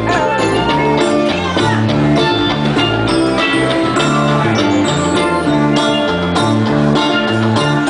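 Live band playing: electric guitar over bass and drums.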